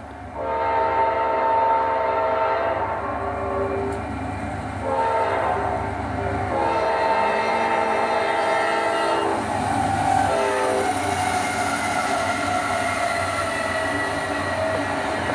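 Multi-chime diesel locomotive horn sounding a series of blasts, two long, then a short one, then a last long one that fades, over a low, steady diesel engine rumble, from a CP Rail N scale diesel's model train sound.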